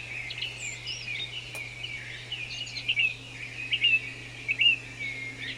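Songbirds chirping and warbling in a busy run of short, quick notes, a few of them louder, over a low steady hum.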